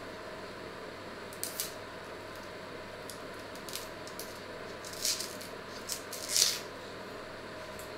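Small paring knife cutting the peel off a small potato by hand: several short, scraping strokes, the loudest about six and a half seconds in, over a steady faint hum.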